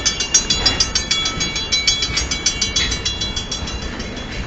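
Railroad crossing bell ringing rapidly with a metallic clang, fading about three seconds in as the train moves past it, over the low rumble of the moving train.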